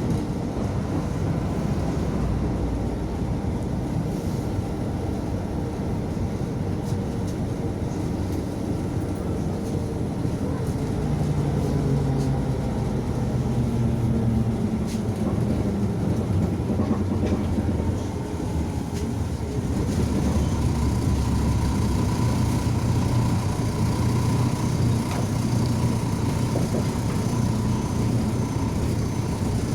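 MAZ 105 city bus running, heard from inside the passenger cabin: diesel engine hum with road noise, the engine note rising as the bus speeds up about a third of the way in, dipping briefly, then holding steady.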